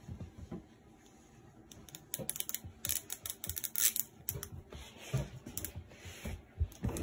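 A red printed wrapper being crinkled and peeled by hand off a small toy surprise capsule: a quick, irregular run of small crackles and rustles that starts about two seconds in.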